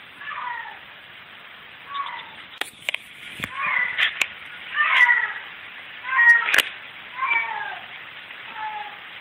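Domestic cat meowing over and over, short calls that slide down in pitch, about one a second. Several sharp clicks fall between the calls in the middle, the loudest just after one call.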